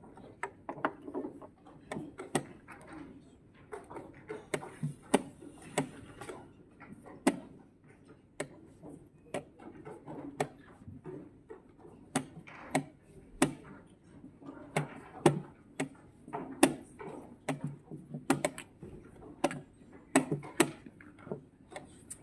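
Plastic chess pieces set down on the board and the chess clock's buttons slapped in quick succession during fast blitz play: a string of sharp clicks and knocks, about one or two a second, with softer taps between.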